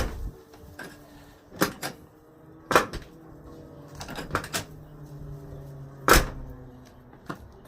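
1996 Ford F-150 pickup door being worked and shut on new hinges: a run of sharp clunks and latch knocks, the loudest about six seconds in. A faint steady hum runs underneath through the middle.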